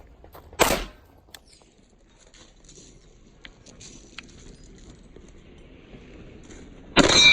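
A single gunshot about a second in, then faint clicks and rattling of gear while the shooter moves. Near the end another shot, followed by a steel target ringing with several clear tones.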